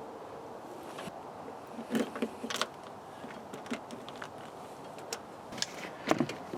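Scattered small clicks and plastic taps of hands fitting an LED bulb into a twist-lock gauge-light socket, a cluster of them about two seconds in and another near the end, over a steady low hiss.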